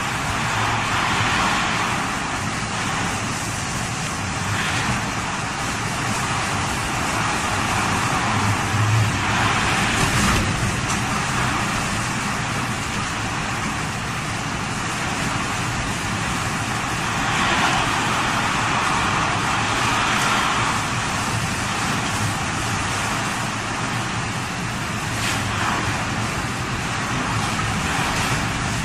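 Typhoon wind blowing hard with surf breaking against a seawall: a continuous rushing noise that swells several times in gusts.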